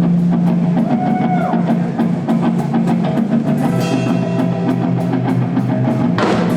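Rock band playing live: loud instrumental opening of a song with a drum kit keeping a steady beat under guitar and a sustained low note.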